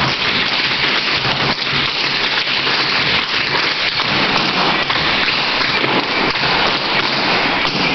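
Many tap shoes striking a hardwood floor together, a dense, steady clatter of overlapping taps from a group of tap dancers.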